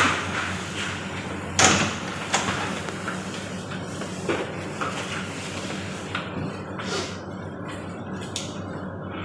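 Cloth and apron rustling and handling noises as an apron is put on and tied, with a sharp knock about one and a half seconds in and smaller knocks after, over a steady low hum.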